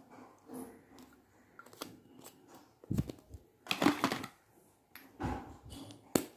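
Plastic lipstick tubes being handled: the cases click and knock against one another, with louder knocks around the middle and a sharp click near the end.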